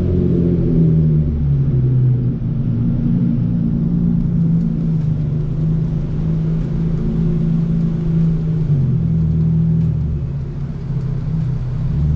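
Straight-piped Hyundai Genesis Coupe 3.8 V6 exhaust droning steadily at low engine speed, with only small shifts in pitch and no hard revs.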